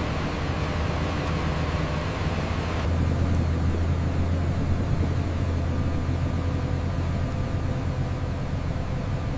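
Steady low machinery hum and rumble with a noise haze above it. About three seconds in it changes abruptly: less hiss, and the low hum grows stronger.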